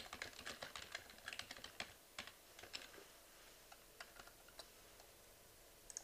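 Faint typing on a computer keyboard: a quick run of key clicks over the first three seconds, then a few scattered clicks.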